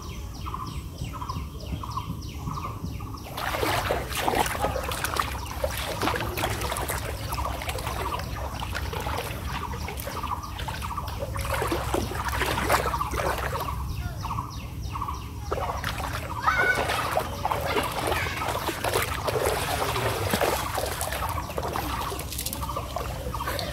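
Water splashing and sloshing as a cast net is hauled in through shallow floodwater, starting a few seconds in with a brief lull about two-thirds through. A steady, repeating outdoor call pulses a few times a second at the start and during the lull.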